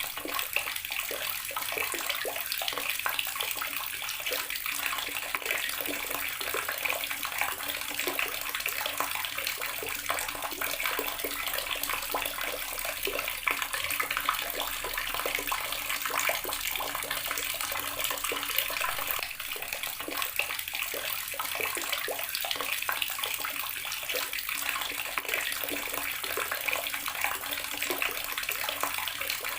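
Water running steadily from an outdoor tap and splashing below, a constant spattering hiss without break.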